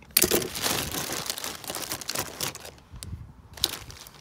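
Wrapping crinkling and rustling as pocket knives are handled and pulled from a bag. The loudest stretch runs for about the first two and a half seconds, and a short burst of crinkling comes near the end.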